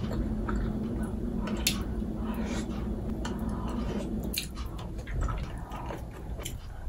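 Close-up chewing and mouth sounds of someone eating pasta in tomato sauce, with scattered light clicks. A low steady hum underneath stops about four seconds in.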